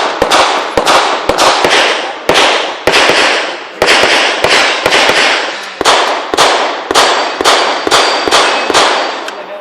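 Pistol shots fired in quick succession, about two to three a second with uneven spacing, each sharp crack followed by a short ringing echo; the firing stops near the end.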